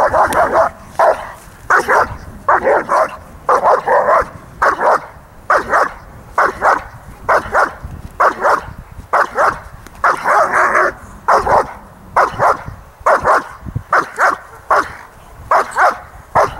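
German Shepherd barking hard and repeatedly at a decoy in protection training, about one and a half to two barks a second, with a brief run of barks close together about ten seconds in.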